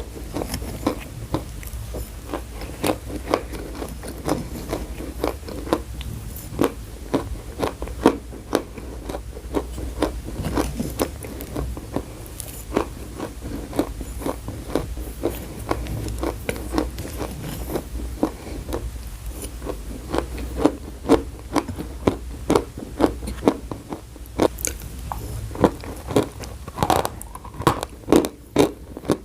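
Chalk being bitten and chewed close to the microphone: dense, irregular crunches, several a second, with some scraping.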